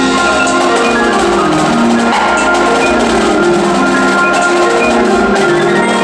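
Indoor percussion ensemble playing loudly: marimbas and other mallet keyboards carry a moving line of pitched notes over drums and percussion strikes.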